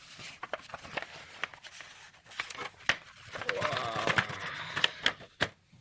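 Paper and cardboard packaging being handled: leaflets and box inserts rustling and crinkling, with scattered clicks and taps.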